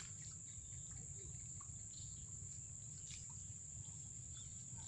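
Insects trilling steadily at one high pitch, over a low rumble, with a faint click about three seconds in.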